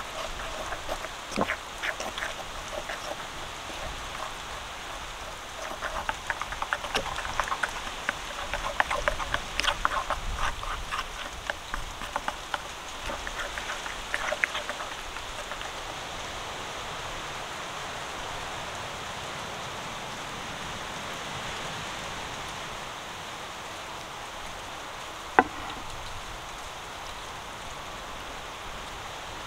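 A spoon stirring and scraping a thick spice marinade paste in a clay bowl: quick uneven clicks and scrapes that thin out about halfway through. After that there is only a steady background hiss, with one sharp click near the end.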